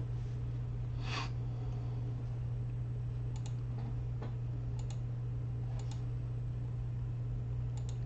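Computer mouse buttons clicking four times from about three seconds in, each click a quick pair of ticks, over a steady low hum.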